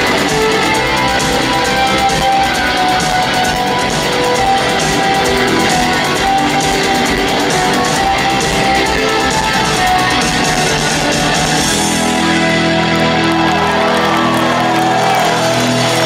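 Rock band playing live without singing: drum kit with cymbals, electric guitars and bass. About twelve seconds in the drums and cymbals stop, leaving held guitar and keyboard notes with a sliding guitar note over the bass.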